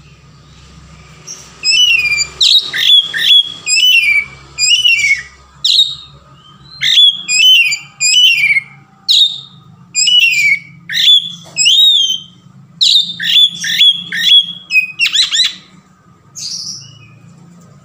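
Male Oriental magpie-robin (kacer) singing in full, open voice (ngeplong): a loud, varied song of clear whistled notes, many sliding downward, delivered in quick phrases with short pauses. It starts about a second in and eases to a single softer note near the end.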